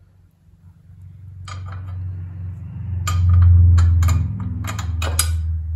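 Metal clinking and rattling as a steel brake master-cylinder bracket and its hardware are handled and fitted against a Jeep's frame rail, in a run of sharp clicks. Under it a low hum swells, loudest about three seconds in.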